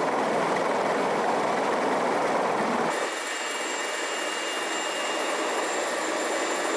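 MH-53E Sea Dragon helicopter running on the ground with its rotors turning: a steady, dense rush of rotor and turbine noise. About three seconds in it changes to the sound inside the cockpit, somewhat quieter and with steady high-pitched turbine whines.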